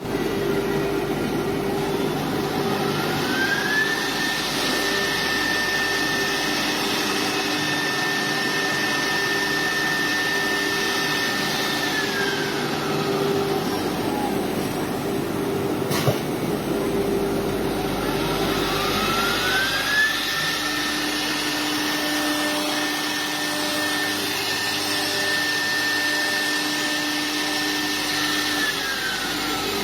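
CNC router's air-cooled spindle running over steady machine noise and a low hum. Its whine rises in pitch about three seconds in, holds for several seconds and falls away, with a sharp click in between. It then spins up again around twenty seconds and winds down near the end.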